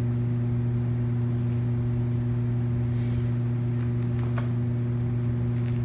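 A steady low machine hum holds at one pitch throughout. A few faint scratchy clicks come about four seconds in and again near the end as kittens paw at a carpet play mat.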